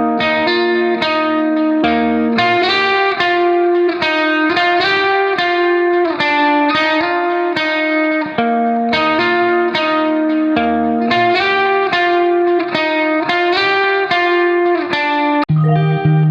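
Background music led by a picked electric guitar with effects, playing a quick run of notes over a bass line.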